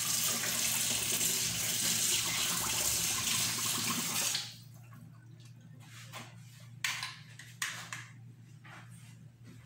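Tap running into a sink as hands are rinsed under it; the water is turned off about four and a half seconds in, leaving a few faint drips and knocks.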